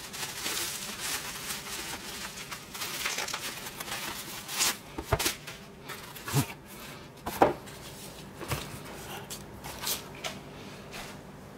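Bubble wrap crinkling and rustling as it is pulled off a parcel. A cardboard book mailer is then handled and opened, with several separate light knocks and scrapes.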